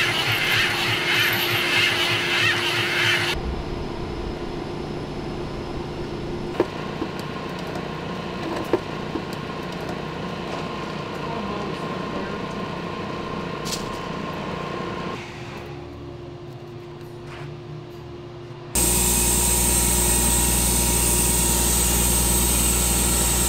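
Steady running of work-site engines and machinery, changing abruptly several times, with a couple of sharp clicks near the middle. In the last few seconds a louder steady engine drone with a deep hum takes over.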